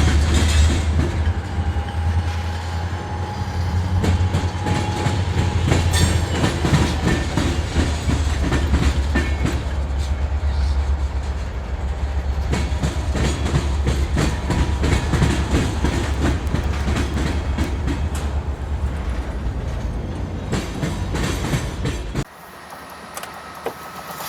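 Freight train cars rolling past, wheels clicking over rail joints over a steady low rumble; the sound cuts off abruptly near the end.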